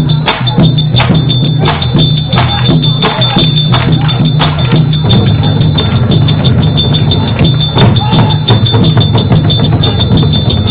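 Percussion-led music: sharp strikes, about two to three a second, over a steady low drone and a held high tone.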